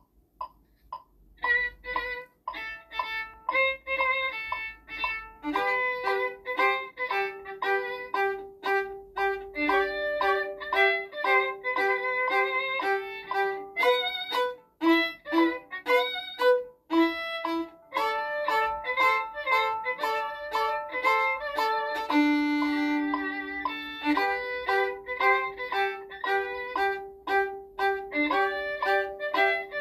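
Violin playing a melody, with a lower note repeated again and again beneath it.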